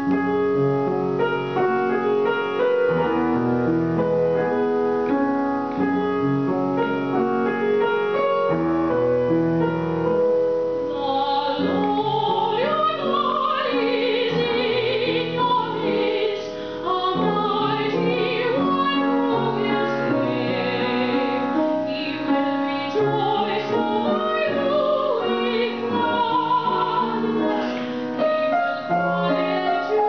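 Steinway grand piano and violin playing a slow classical passage; about eleven seconds in, a woman begins singing in operatic style with vibrato over the piano.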